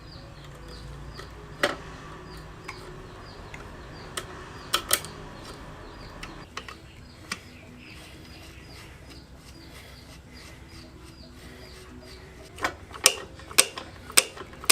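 Sharp clicks and knocks of parts and tools being handled while a motorcycle clutch cable is fitted: scattered single clicks, then a louder quick run of them near the end, over a low steady hum.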